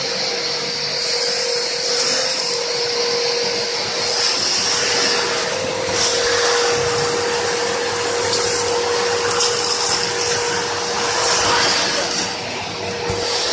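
Two-motor industrial vacuum cleaner running with a steady high whine over a rush of air. The airflow noise grows and fades several times.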